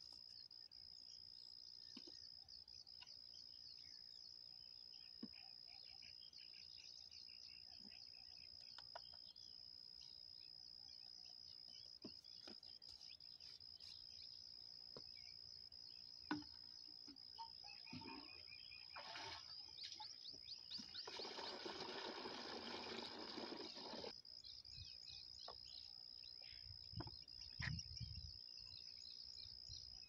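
Quiet outdoor ambience: a steady high-pitched insect drone with faint chirps and ticks. A few seconds of hiss rise and stop about two-thirds of the way through.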